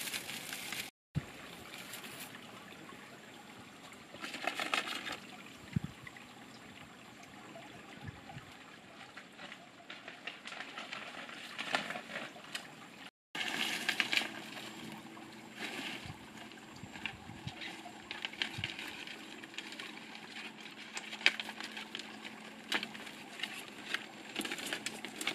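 Faint outdoor ambience with scattered soft rustles and light knocks as paper pinwheels are handled and tied onto bamboo poles.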